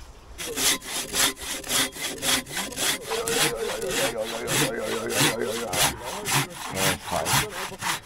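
Coarse-toothed hand saw cutting through a log by hand in fast, even back-and-forth strokes, about three a second. The sawing stops just before the end.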